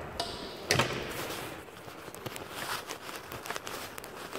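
Handling noise on a phone's microphone: a knock less than a second in, then scattered small clicks and rubbing as the phone is moved and covered.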